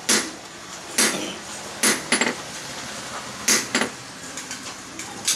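Blacksmith's hand hammer striking a red-hot steel blade on a small anvil, forging it: about seven sharp metallic clanks in an uneven rhythm, some in quick pairs.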